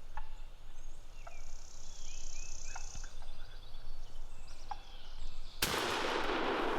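A wild turkey gobbler gobbling at close range. About five and a half seconds in, a sudden loud shotgun blast rings on.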